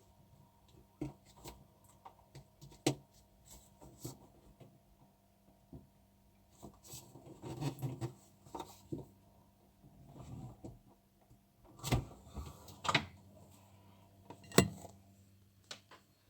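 Refrigerator humming steadily, with scattered knocks, clinks and rustles of things being handled. A few sharper knocks come near the end, the loudest shortly before it ends.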